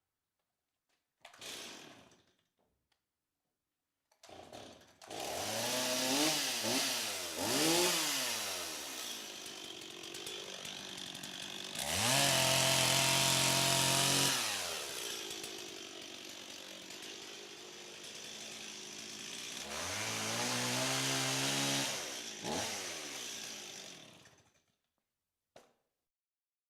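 Chainsaw engine: a short burst about a second in, then it starts and is revved up and down several times. It is held at full throttle for a couple of seconds in the middle, drops back to a lower speed, revs up again, then winds down and stops near the end, with a brief blip after.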